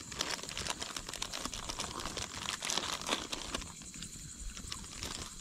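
Wood campfire crackling, with many small, irregular sharp snaps.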